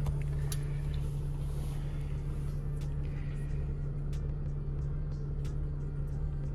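Mercedes-Benz Sprinter 906 diesel engine idling with a steady low drone, heard from inside the cab. A few faint light clicks sound over it from about three seconds in.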